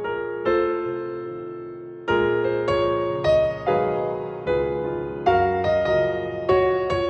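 Piano playing slow chords, each struck and then fading before the next.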